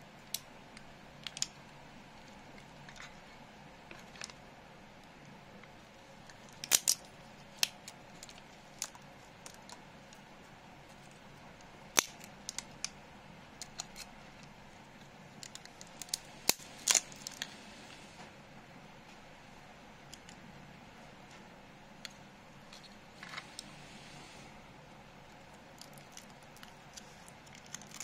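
Pliers and fingers breaking apart a laptop charger's circuit board and transformer: scattered sharp clicks and snaps of plastic and metal parts at irregular intervals, the loudest about 7, 12 and 17 seconds in.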